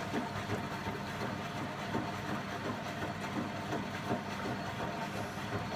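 Indesit 092 washing machine running an empty Cotton 95 descaling wash: a steady hum with a light, irregular clatter over it.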